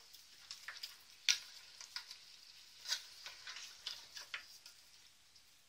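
Wooden spoon stirring pieces of meat in a stainless steel pot, with irregular soft scrapes and clicks against the pot over a faint sizzle as the meat braises on medium heat.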